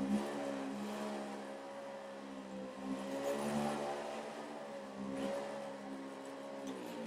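Handheld electric massager running on a patient's back, its motor hum wavering slightly in pitch as it is pressed and moved. It is switched off near the end.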